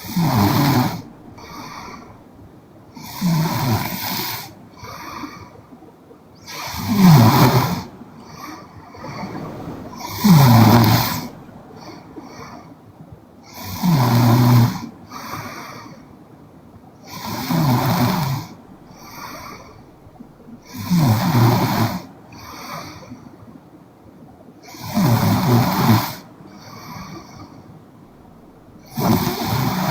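A young woman snoring in her sleep: a loud snore about every three and a half seconds, each followed by a softer, shorter breath sound.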